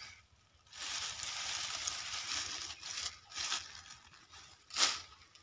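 Dry leafy branches rustling and crackling as brushwood is gathered up into an armful: a long stretch of rustling, then a few short, louder crunches near the end.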